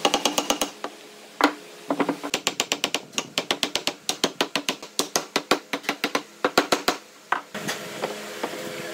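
Rapid, sharp wooden knocks, about five or six a second with a few short pauses: tapping on the wooden rail to seat it into the joint at the top of the leg.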